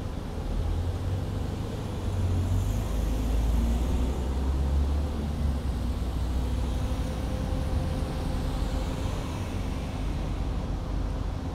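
Cars driving past on a city street: engine and tyre noise that swells as a car passes, loudest around three to five seconds in, then settles to a steadier traffic rumble.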